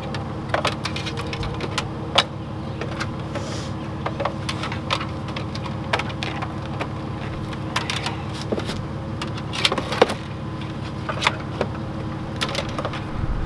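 Van engine idling with a steady hum. Scattered clicks and knocks come from a portable box fan being handled and set on the floor and its 12-volt accessory plug being pushed into the socket.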